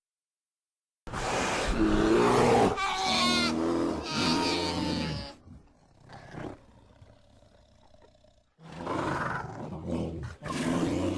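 Sound-effect animal roaring calls: a long loud bout starting about a second in, a quieter stretch in the middle, then a second bout near the end.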